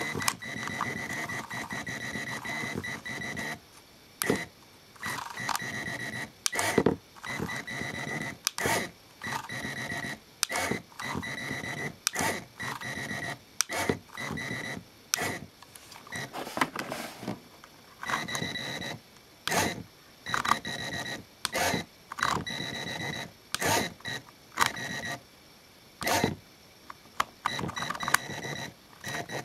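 Lego Power Functions electric motor whirring in short runs with a steady high whine, started, stopped and stepped through speeds from the speed remote. Sharp plastic clicks from the remote's dial and stop button fall between the runs.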